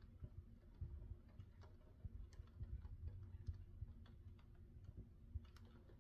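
Faint rain: scattered, irregular drops ticking on a hard surface over a low rumble.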